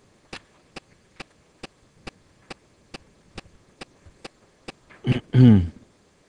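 A steady run of sharp clicks, a little over two a second, that stops near the end, followed by a brief voiced sound from a man, the loudest thing heard.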